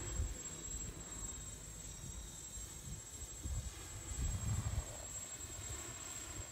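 Small multirotor drone's electric motors and propellers buzzing as it flies overhead, with gusts of low rumble from wind on the microphone, strongest about four and a half seconds in.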